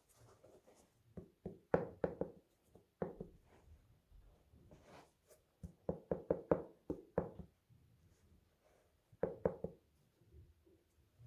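Groups of soft knocks and taps from handling a cardboard shoebox and a pair of sneakers, with a quick run of about four taps a second in the middle.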